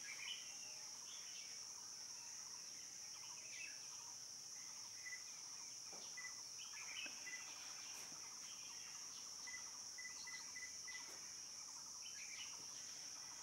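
Faint forest ambience: a steady high-pitched insect drone, with scattered short bird chirps and a few quick runs of high peeps.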